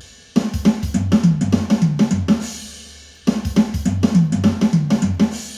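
Drum kit playing two quick fills of rapid drum and cymbal strokes, each lasting about two seconds, the second starting just past three seconds in.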